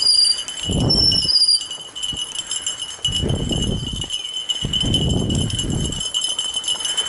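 Metal jingling of dog harness and towline hardware as a fat bike rolls along a dirt single-track trail, with three bursts of low rumble, over a steady high-pitched hum.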